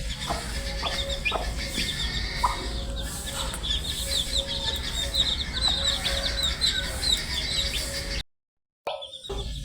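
A brood of baby chicks peeping continuously: many short, high, slightly falling chirps overlapping one another, over a faint steady hum. The sound cuts out completely for about half a second near the end.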